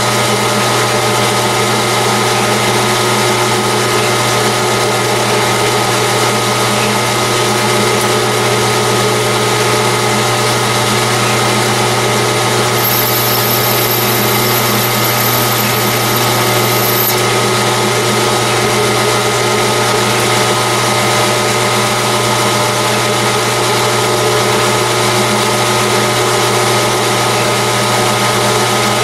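Metal lathe running steadily with its motor and gear drive whirring while a boring-bar tool cuts internal 24 TPI threads in a titanium tube. A thin high whine joins for a few seconds midway.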